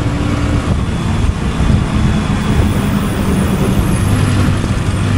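Motorcycle engine running while riding, with a steady rush of road and wind noise; the engine hum grows stronger near the end.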